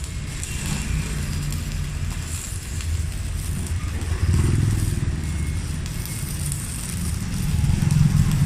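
Stick-welding arc of a Megatec mini inverter welder burning a 3.2 mm electrode, crackling unevenly.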